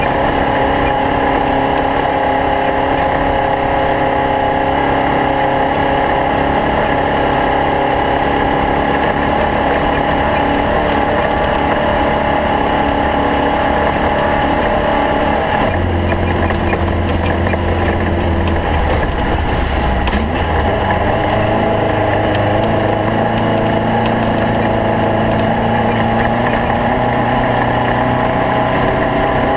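Racing snowmobile engine running at speed, its pitch holding steady and then shifting with throttle changes about halfway through.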